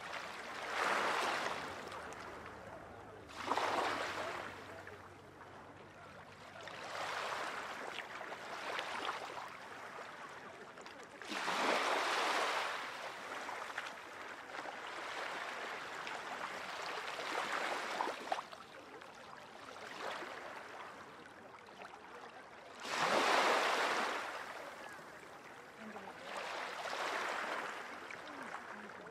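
Small waves breaking and washing ashore. The surf swells and falls away roughly every three to five seconds, with the biggest surges near the start, about twelve seconds in and about twenty-three seconds in.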